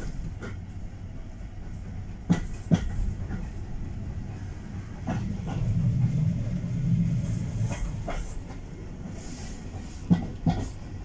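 Heritage railway carriage running along the track, heard from inside the coach: a steady low rumble that grows louder in the middle, with pairs of sharp clicks about every two and a half to three seconds as the wheels cross rail joints.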